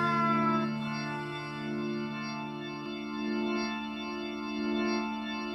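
Music: sustained organ chords held between the sung lines of a song, with the chord shifting about three seconds in.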